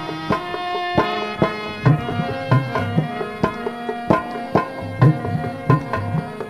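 Instrumental interlude of a devotional bhajan: harmonium playing a held melody over a steady hand-drum beat of about two strokes a second.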